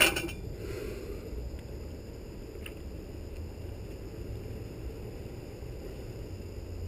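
A single sharp knock, as of a hard object being set down or struck, with a short ringing tail. A softer clatter follows about a second in and a faint tick near three seconds in, over a steady low hum.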